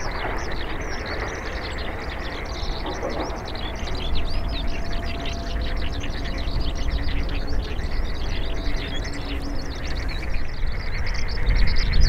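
Busy chorus of small birds: many short, quick chirps overlapping without pause, over a steady low rumble.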